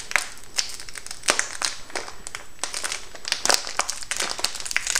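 Plastic package of dried lentils crinkling and rustling as it is handled, with many irregular crackles.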